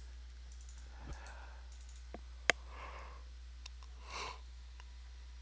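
A sharp computer-input click about two and a half seconds in, with a few fainter ticks, over a low steady electrical hum. Soft breaths come in between.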